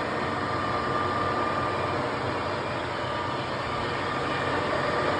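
Clausing Colchester 15-inch metal lathe running under power: a steady mechanical hum with a faint steady whine.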